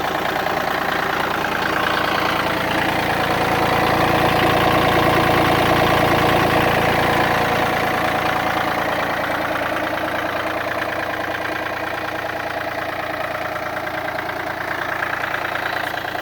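Yanmar F235D's three-cylinder diesel engine running just after a start, growing a little louder in the middle before easing back to a steady idle.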